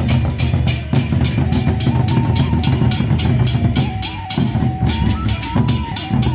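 Sasak gendang beleq ensemble playing: large double-headed barrel drums beaten with sticks in a fast, dense rhythm, with quick metallic clashes over them and a high melody stepping between a few notes.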